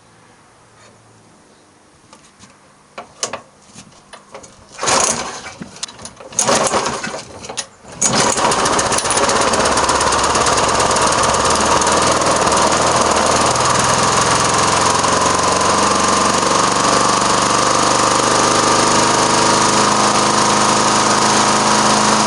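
Hayter Hawk petrol lawn mower's Briggs & Stratton engine being pull-started after a service: a few knocks, two short loud bursts as the cord is pulled, then the engine catches about eight seconds in and runs steadily.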